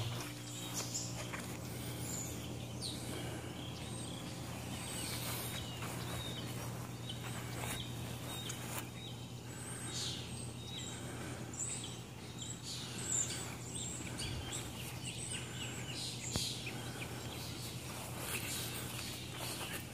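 Outdoor garden ambience: a steady low hum with a few birds chirping over it, and occasional light rustles and steps.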